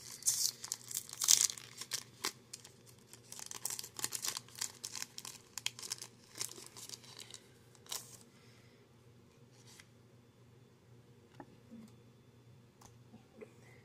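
Foil wrapper of a Pokémon card booster pack being torn open and crinkled in the hands, a dense crackling that is loudest in the first two seconds and dies down about eight seconds in, leaving only a few faint ticks.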